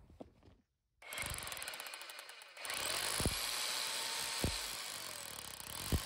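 Corded rotary hammer drill boring into the edge of a concrete slab: a dense, steady hammering rattle that starts about a second in after a short break and gets louder about halfway through.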